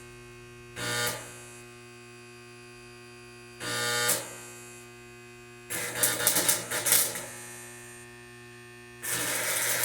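Electric arc welding: four short tack welds, each a loud crackling buzz of the arc lasting about half a second to a second and a half, the third the longest and most crackly, over the welder's steady electrical hum.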